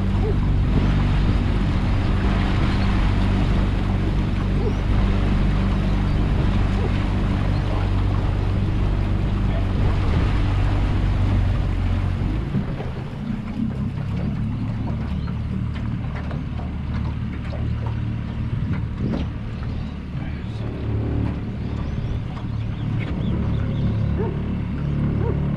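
Small outboard motor pushing an aluminium tinny at trolling speed, running steadily with water rushing past the hull. About twelve seconds in the engine note changes and the sound gets a little quieter as the motor is throttled back.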